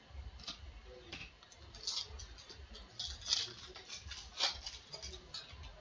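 Baseball trading cards being handled: soft rustles, slides and taps as cards are flipped through and set down in stacks on a mat, with a few louder scrapes about two, three and four and a half seconds in.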